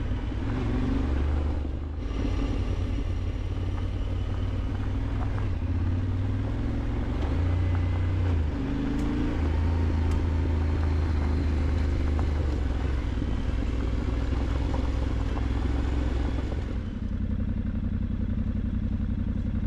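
Yamaha Ténéré 700 World Raid's parallel-twin engine running steadily while the motorcycle is ridden, settling to a smoother, quieter note about seventeen seconds in.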